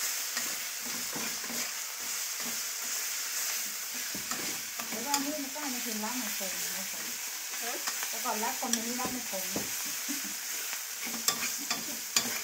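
Red curry paste sizzling as it fries in hot oil in a wok, stirred with a metal utensil that scrapes against the pan, with a few sharp scrapes near the end.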